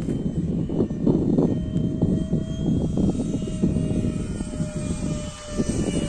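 Strong wind buffeting the microphone with a gusting rumble. Behind it is the faint, thin whine of the RC F-15's 64 mm electric ducted fan as the jet flies past, its pitch drifting slightly down.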